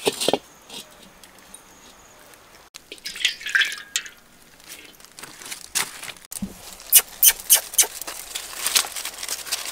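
A metal wok clanks as it is set down on stones. A thin stream of liquid is poured into the empty wok about three seconds in, and near the end come sharp crisp clicks and rustles as a bunch of green onions is handled.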